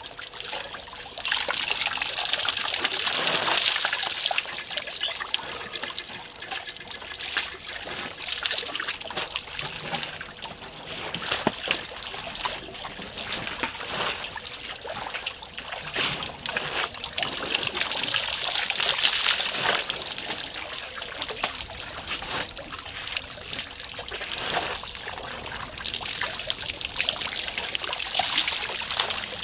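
Water trickling and splashing as African elephants drink at a waterhole, drawing water up in their trunks and spilling it into their mouths. The splashing swells and fades in several stretches, with short sharper splashes among it.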